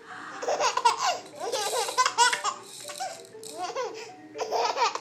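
Baby laughing in bouts: a long run of giggles, a short one, then another starting near the end.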